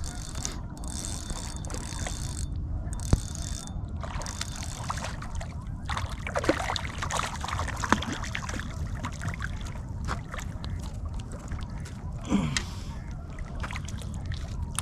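Water splashing and sloshing at the shoreline over a steady wind rumble, with a sharp click about three seconds in and a couple of short falling bird calls midway and near the end.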